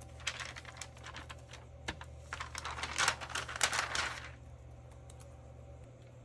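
Paper and craft materials being handled on a desk: a run of light taps and clicks, then about two seconds of paper rustling and sliding.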